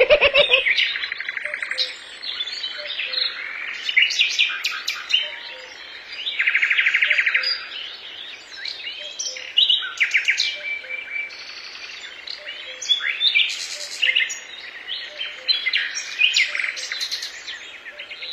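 Wild birds chirping and singing, several overlapping calls: short sharp chirps, whistled notes and a few buzzing trills, the longest lasting about a second.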